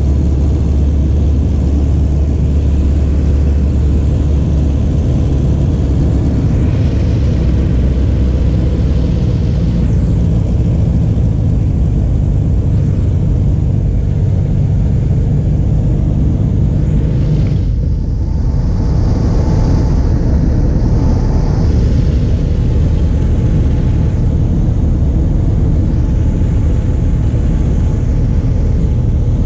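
Pitts S-1S biplane's piston engine and propeller droning steadily, heard from inside the open-framed cockpit with wind rushing past. About two-thirds of the way through the engine note drops and changes as power is eased back.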